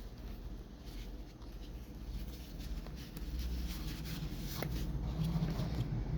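Faint handling noise of unboxing: light scratching, rustling and small clicks over a low steady hum, a little busier in the second half.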